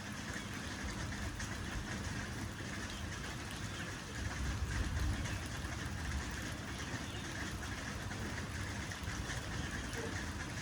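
Steady rain falling, with a low rumble that swells about four to five seconds in.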